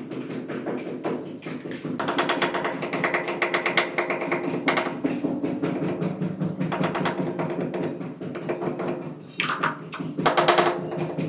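Rapid tapping on a ceramic wall tile as it is set into adhesive on the wall, with two louder scraping strokes near the end.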